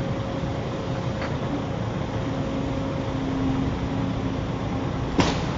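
Steady low rumble of a running motor vehicle and road traffic, with a faint steady hum through the middle and a single sharp knock near the end.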